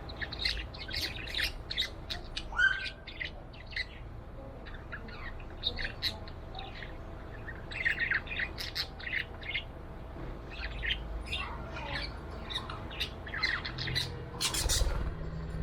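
A pet budgerigar chirping and chattering in quick runs of short, high chirps, with a couple of brief lulls and a louder, harsher squawk near the end.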